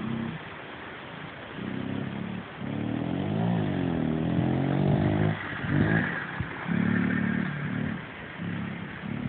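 Yamaha TT-R50 mini dirt bike's small four-stroke single-cylinder engine revving in short bursts as it is ridden, easing off between them, with one longer rev about three seconds in that rises and falls in pitch. Its exhaust spark arrestor has not yet been cleaned.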